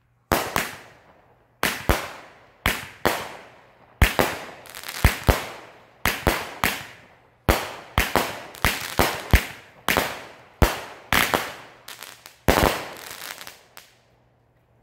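A Legend "Time Bomb" 16-shot consumer firework cake firing its shots one after another. Each is a sharp bang with a fading tail, in quick, uneven succession, and they stop about a second before the end.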